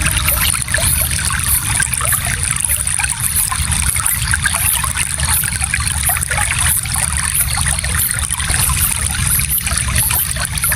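Shallow stream flowing steadily, water trickling and babbling over stones with many small splashes.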